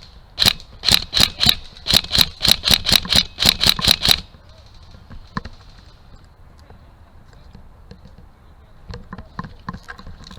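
An airsoft gun fired as a rapid string of about fourteen single shots over some four seconds, each a sharp crack with a metallic ring. After that it is quieter, with faint scuffling near the end.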